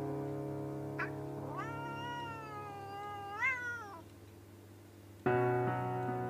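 Female domestic cat in heat giving one long, drawn-out meow of about two seconds while a tom mounts her. The call rises sharply in pitch near its end and then fades. Background piano music plays underneath and comes back in with new chords near the end.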